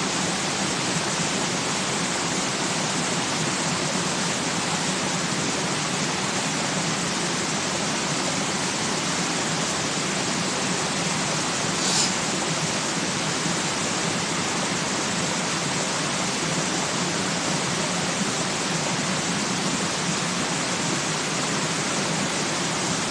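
Steady rush of flowing water at an even level, with a single short click about halfway through.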